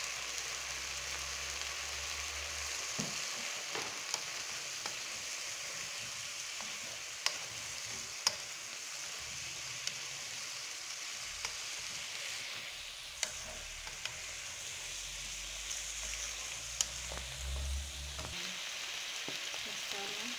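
Chicken pieces sizzling as they fry in a pot, stirred with a wooden spoon that knocks now and then against the pan, making scattered sharp clicks over a steady hiss.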